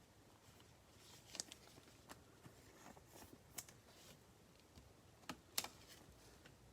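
Faint, scattered clicks and taps of trading cards and stiff plastic top loaders being handled, a few light ticks a second apart, with a slightly sharper pair near the end.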